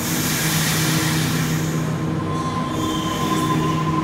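Sydney Trains Waratah A-set electric train starting to pull away from an underground platform: a steady electrical hum with hiss, and a thin, steady high whine that comes in about two seconds in.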